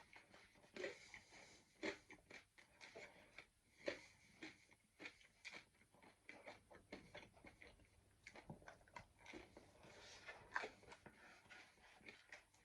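Faint chewing of pizza: irregular soft crunches and mouth clicks.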